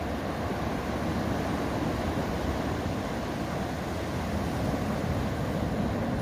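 Steady rush of ocean surf washing onto a sandy beach, mixed with wind noise on the microphone.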